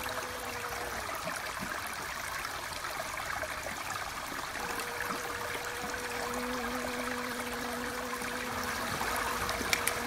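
Steady rushing sound of running water, like a small stream, with a faint steady hum under it that drops out about a second in and returns about halfway through.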